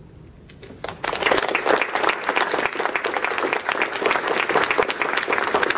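Audience applauding: a few scattered claps, then full steady clapping from about a second in.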